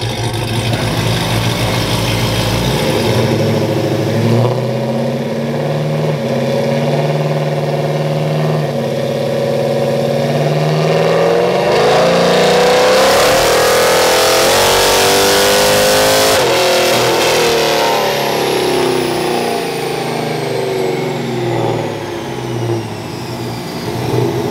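Supercharged 5.7 Hemi V8 of a 2011 Ram R/T making a full-throttle pull on a chassis dyno. The engine note climbs steadily in pitch and is loudest from about twelve to sixteen seconds in, then the throttle closes suddenly and the revs fall away as the rollers coast down.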